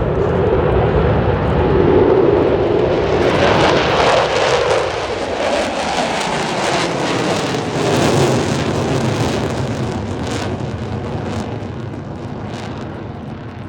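Jet aircraft passing by, its engine noise swelling to a peak about two seconds in, dropping in pitch as it goes past, then slowly fading away.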